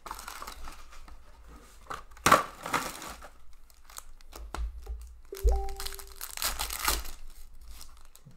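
Foil wrapper of an Upper Deck SPx hockey card pack being torn open, crinkling in bursts, loudest about two and a half seconds in and again from about five and a half to seven seconds.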